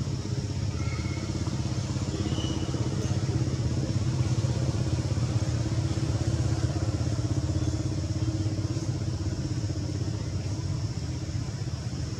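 A steady low engine rumble, like a motor running at a constant speed.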